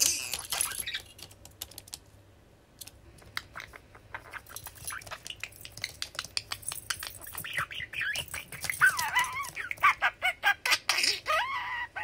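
Male budgie warbling and chattering in quick wavy chirps through the second half, over a fast patter of small clicks from its beak pecking and rattling a plastic lattice toy ball.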